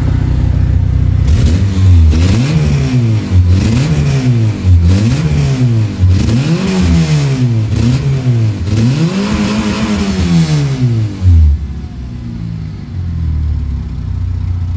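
Peugeot 106 Sport engine idling, then revved in about seven quick blips that rise and fall, settling back to idle near the end. It breathes through a carbon-fibre CBR 600 silencer and has an exhaust leak where the intermediate pipe meets the manifold.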